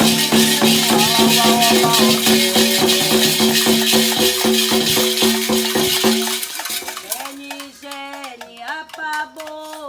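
Candomblé ritual music: shaken rattles and percussion keep a fast, even rhythm under singing, then stop about six seconds in, leaving one voice chanting a solo line.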